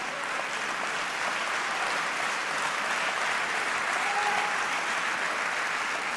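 Audience applauding, the clapping swelling a little in the middle and easing off near the end.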